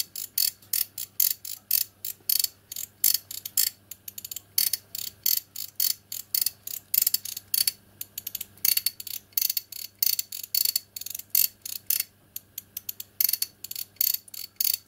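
Ratchet-driven steam cylinder lubricator for a miniature live steam locomotive, worked by hand: its pawls click rapidly over the ratchet wheel, several clicks a second, as the arm is rocked back and forth. Each stroke advances the wheel and pumps oil, a sign the lubricator is working.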